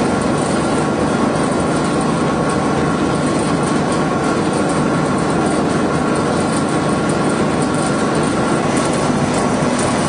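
Pet-food extruder running steadily, a loud, unbroken mechanical din with a faint steady hum under it.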